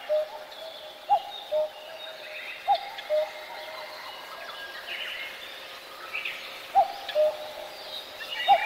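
Bird calls: short low hooting notes that come in pairs about half a second apart and recur every second or few, over fainter higher whistles and chirps.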